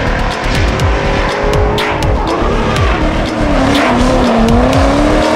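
Two BMW drift cars sliding in tandem: engines revving, the pitch dipping about halfway through and climbing again, with tyres squealing. Music with a steady beat runs underneath.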